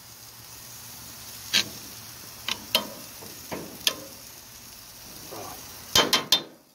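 Steady sizzling on the grill as metal tongs stir sauerkraut, onions and peppers in a cast-iron skillet, clicking against the pan several times, with a quick run of louder clacks near the end.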